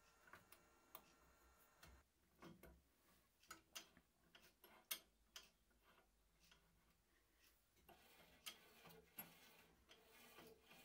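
Near silence with faint, irregular small clicks and taps of metal parts being handled at a bandsaw's lower blade-guide bearings as they are set.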